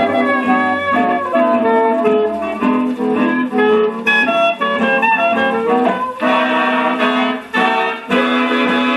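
A 1938 swing big-band recording played from a 78 rpm shellac record: an instrumental passage with clarinet and horns over the rhythm section. The sound is muffled, with little treble, as old recordings are.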